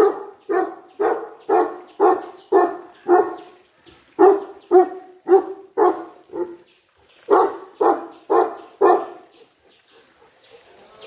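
Dog barking in steady, evenly spaced barks, about two a second, in three runs of seven, five and four barks, with short pauses about three and a half and six and a half seconds in.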